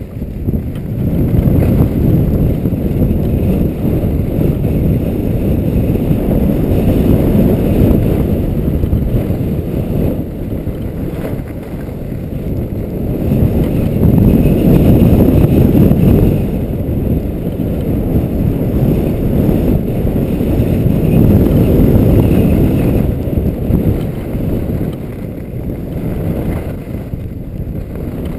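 Wind buffeting the microphone of a skier's action camera during a fast downhill run: a loud, deep rumble that swells and eases several times as the speed changes.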